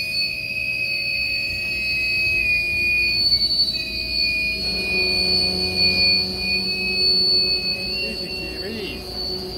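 Freight train's hopper wagons rolling past on the track: a steady high-pitched squeal of steel wheels over a low rumble, with the rumble growing louder about halfway through.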